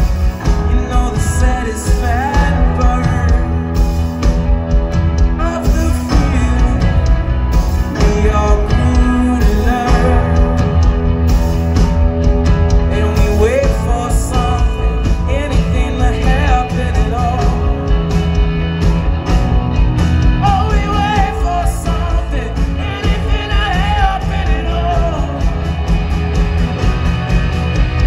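A live rock band playing, with electric guitars, bass and drums under a male singer.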